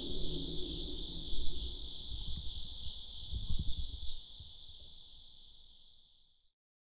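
A steady high-pitched drone with a low rumble beneath, fading away from about four seconds in and gone about six and a half seconds in.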